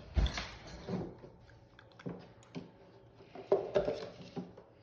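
A metal spoon scraping and tapping against a container as a scoop of fat is dug out, in a few short knocks and scrapes, busiest near the end.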